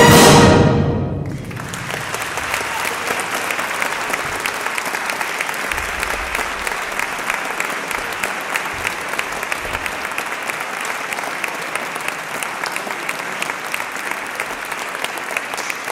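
A wind band's final chord cut off in the first second, its sound dying away in the church's reverberation, then an audience applauding steadily.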